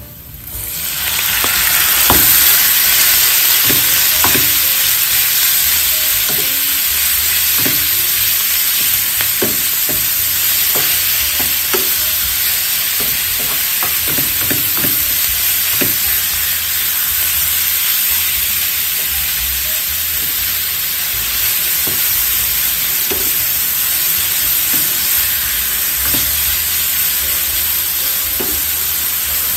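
Minced pork sizzling in hot oil and browned garlic in a wide frying pan. The sizzle swells over the first couple of seconds as the meat heats, then holds steady. A wooden spatula stirs the meat and knocks against the pan now and then.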